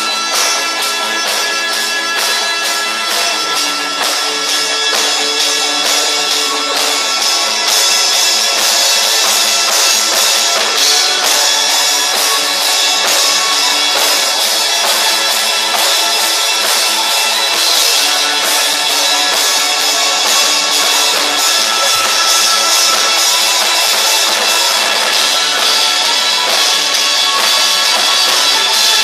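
Live rock band playing: electric guitars, bass and keyboard over a steady drum beat, heard loud and thin, with little deep bass.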